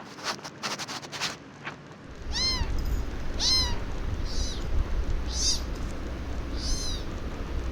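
A small animal calls five times, short high-pitched cries that each rise and fall in pitch, over a steady low rumble. A few clicks come in the first two seconds.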